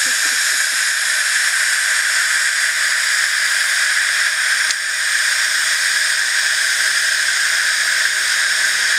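Steady, loud hiss of steam escaping from a 7¼-inch gauge live steam locomotive, high and unbroken, with a brief dip about halfway through.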